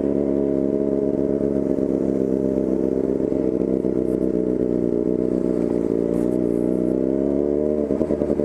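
Yamaha FZ6's inline-four engine running at steady revs through a bare 4-into-1 racing exhaust with no silencer. The pitch holds even and wavers slightly near the end.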